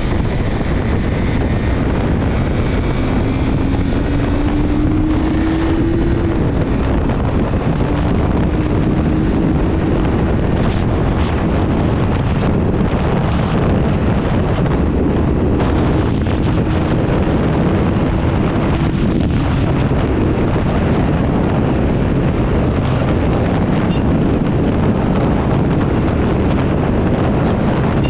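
KTM 390 Duke BS6 single-cylinder engine running while riding, largely buried under heavy wind noise on the microphone. Its pitch climbs for a few seconds, drops suddenly about six seconds in, then rises slowly again, with another gradual climb later on.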